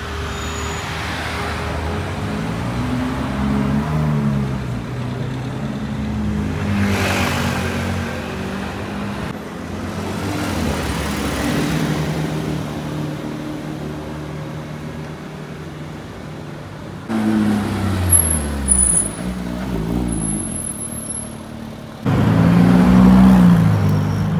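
Car engines running in street traffic, their notes rising and falling as cars pull away and pass. The sound changes abruptly about 9, 17 and 22 seconds in, and is loudest near the end.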